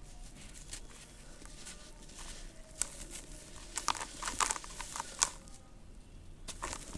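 Lumps of red dirt crumbling and crunching, with faint crackles throughout and a cluster of sharp crunches between about three and five seconds in.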